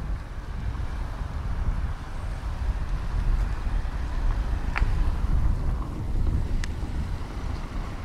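Low, steady vehicle running rumble with a few brief sharp squeaks or clicks, the clearest about five and six and a half seconds in.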